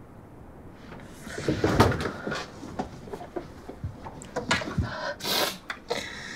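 A string of irregular knocks, clicks and rustles, like objects being handled in a small room, starting about a second in, with a short hiss a little past five seconds.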